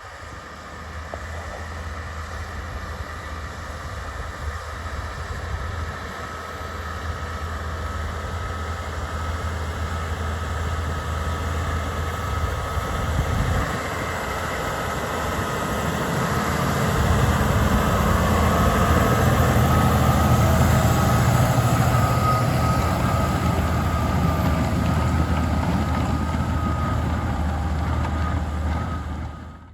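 Massey Ferguson 8S.205 tractor running steadily while ploughing: a low, even engine hum with a faint steady whine above it, quiet for a tractor. It grows louder from about halfway through and cuts off abruptly at the very end.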